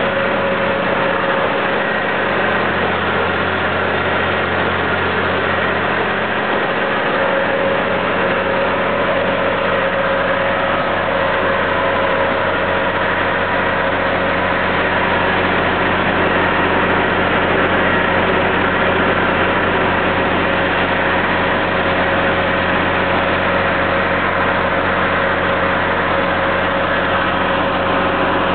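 Well-drilling rig running steadily: an unbroken engine drone with a constant whine over it, holding an even level throughout.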